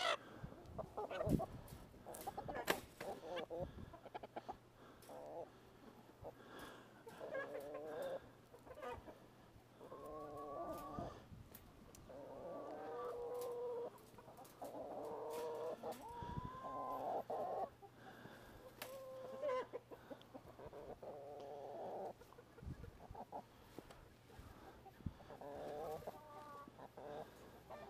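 Chickens squawking and clucking over and over, in calls of a second or two, some rising in pitch, as one is held in a landing net. A few sharp knocks come in the first few seconds.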